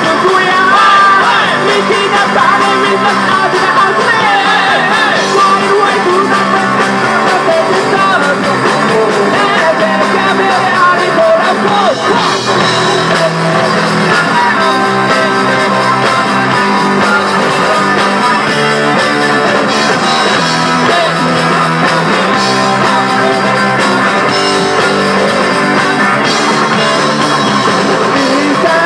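Live rock band playing loud: electric guitar, bass guitar and drum kit, with a man singing lead.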